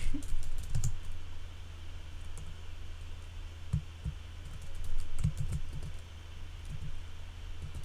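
Computer keyboard typing: scattered keystrokes, with a quick run of several keys about five seconds in. A steady low hum sits underneath.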